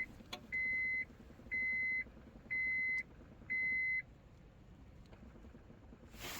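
Electronic beeper sounding four steady high beeps, each about half a second long and one a second apart, with the ignition on during Honda Odyssey immobilizer key programming.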